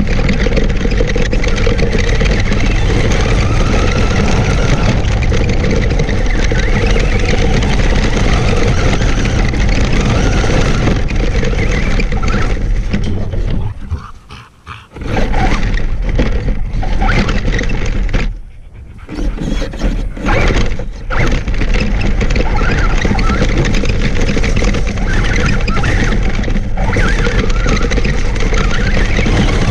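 Traxxas Stampede RC truck driving over loose gravel, its motor and tyres on the stones heard loud and close from a camera mounted on the truck. The noise drops out briefly about halfway through and again a few seconds later, as the truck pauses.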